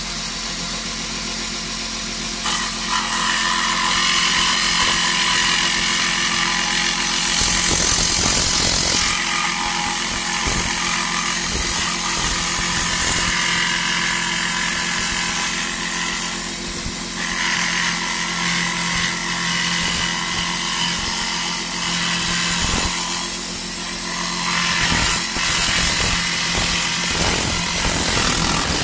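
Parkside 12 V cordless reciprocating saw, mounted blade-up under a homemade table as a precision scroll saw, running steadily. About two and a half seconds in, its blade starts cutting a curve in thin aluminium sheet, adding a loud high hiss and rattle over the motor's whine.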